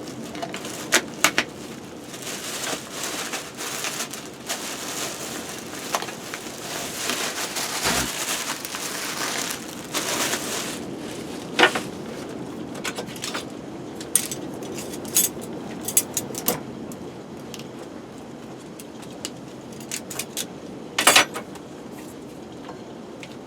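Wood fire crackling with scattered sharp pops, and a hiss that stops about halfway through.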